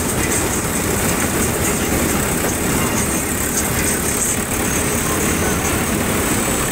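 Old tractor's diesel engine running steadily as it is driven, heard up close from the seat.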